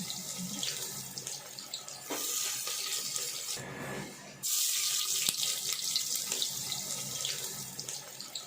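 Chopped onions sizzling in hot oil in a pressure cooker: a steady frying hiss with fine crackles, which breaks off briefly about four seconds in and starts again abruptly.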